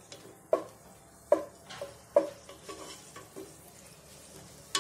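A wooden spoon stirring dried red chillies in hot oil in a nonstick pot, knocking sharply against the pot a few times, over a faint sizzle.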